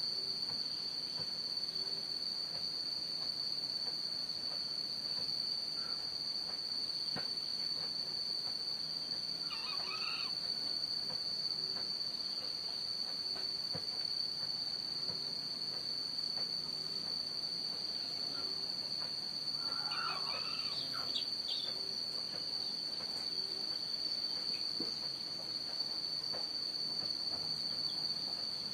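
Insects droning steadily in one unbroken high-pitched note, with faint bird calls twice, about ten and twenty seconds in.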